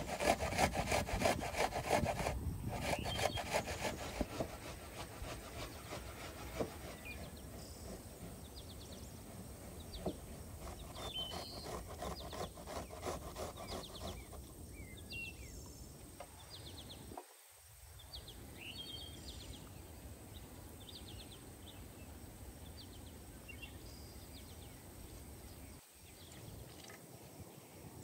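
Hand grating on a metal box grater: quick, rhythmic rasping strokes, loudest in the first few seconds and returning a little later. In the second half, birds chirp.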